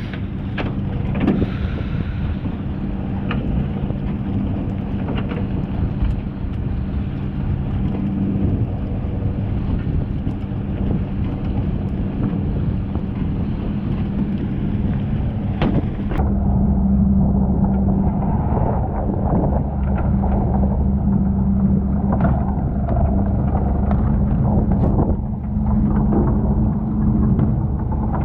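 Fishing boat's engine running steadily, with scattered knocks. The sound changes abruptly about sixteen seconds in, where the low rumble becomes heavier.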